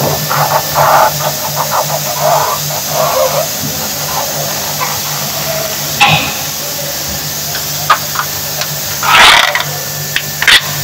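A thin metal printing plate is handled and fitted onto the plate cylinder of a Manugraph web offset newspaper press, giving scattered clattering, clicks and a brief louder scrape about nine seconds in. A steady low machine hum runs underneath.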